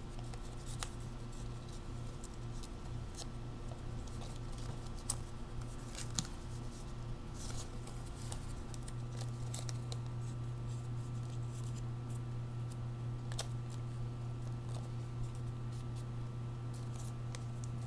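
Sheet of paper being handled and folded, with scattered short crinkles and creasing clicks, over a steady low hum.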